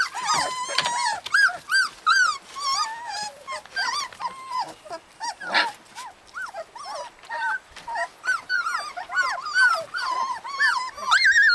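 A litter of young husky puppies whining and squealing. There is a constant stream of short, high-pitched cries that rise and fall, many overlapping.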